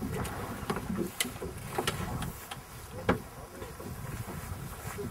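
Fishing boat under way: a steady low rumble of motor and wind, with a scatter of sharp clicks and knocks, the loudest about three seconds in.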